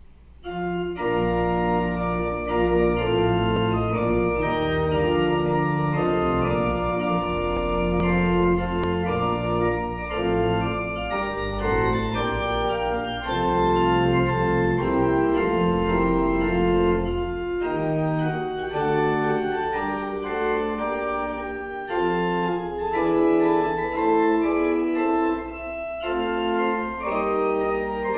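Church pipe organ playing the postlude: slow, sustained chords over a deep pedal bass, starting about a second in.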